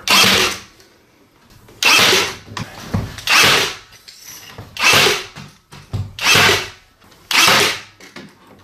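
Nail gun firing six times, about a second and a half apart, driving nails through the stair skirt board and drywall into the wall studs.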